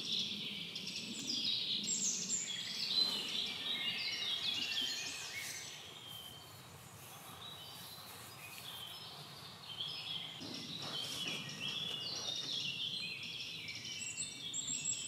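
Several songbirds singing at once, a busy chorus of overlapping chirps and trills that thins out for a few seconds midway before picking up again.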